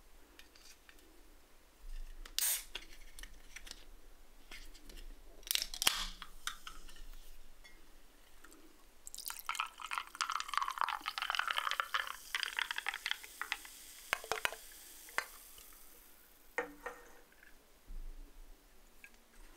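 Sparkling pink grapefruit soft drink poured from a can into a glass mug of ice, fizzing and crackling for about six seconds with ice cubes clinking against the glass. A couple of sharp clicks come before the pour, and two knocks follow it near the end.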